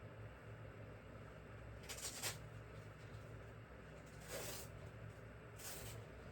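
Three short scraping, rustling noises of a plastic toy being handled as its back battery-compartment door is worked open, the first a quick double scrape, over a faint steady hum.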